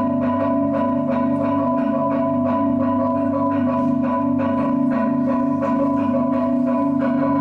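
Two marimbas and two vibraphones playing a fast minimalist pattern: quick, evenly pulsing mallet strokes over ringing vibraphone notes and a steady repeating low marimba line.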